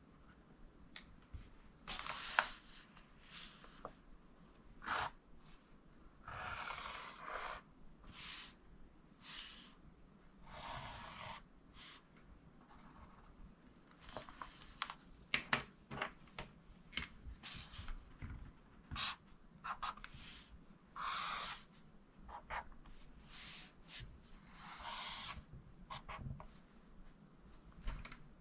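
Pencil writing on notebook paper, a series of separate scratchy strokes from a fraction of a second to about a second long with short pauses and a few light ticks between them; near the end a pink pen draws on the paper.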